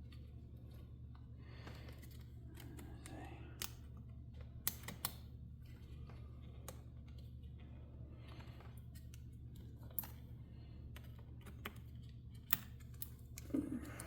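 Scattered sharp clicks and light handling noise as laptop SO-DIMM memory modules are pushed down into their slots and the retaining clips snap, with a steady low hum underneath.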